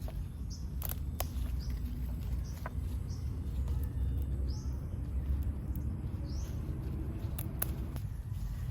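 Small birds chirping, short high calls every second or two, over a steady low rumble, with a few sharp clicks.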